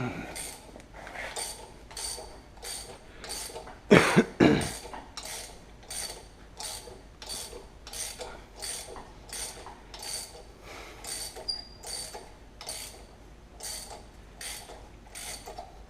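Hand socket ratchet wrench being cranked back and forth on an engine bolt, ratcheting in a steady rhythm of about one and a half strokes a second with metallic ringing. A louder clunk about four seconds in.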